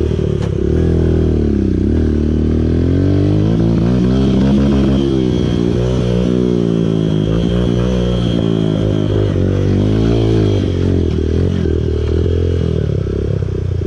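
Motorcycle engine running as the bike is ridden, its pitch falling and rising with the throttle: it dips about two seconds in, then climbs and holds higher for a few seconds before easing off.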